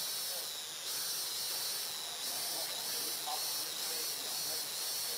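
Steady high-pitched hiss with a slow pulse, and a couple of faint short chirps a little past the middle.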